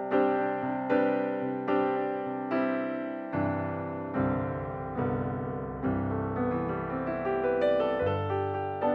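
Background piano music, with notes and chords struck roughly once a second, each ringing and fading before the next.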